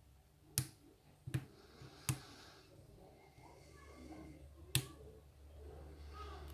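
Lock being picked with a hook pick and tension tool: four sharp metallic clicks, three in quick succession about three-quarters of a second apart, then one more a few seconds later.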